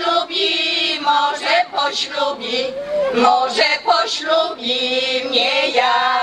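Women's folk choir singing an unaccompanied Polish midsummer wreath song, a line of long held notes with a wavering pitch.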